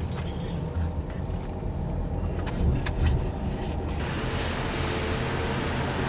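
Low steady road rumble of a car, heard from inside, with a few faint clicks. About four seconds in it gives way to a steady hiss of surf on the beach.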